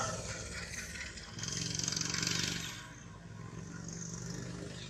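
A motor vehicle engine hums steadily and swells louder as it passes, from about one and a half to three seconds in, then fades.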